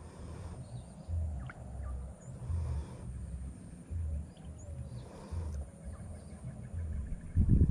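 Outdoor swamp ambience: a low throb repeating about every second and a quarter, with a few faint short high chirps and a thin steady high whine.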